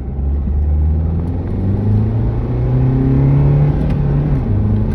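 Renault Megane's engine accelerating, its note climbing steadily for about four seconds, then dropping suddenly near the end as it shifts up a gear.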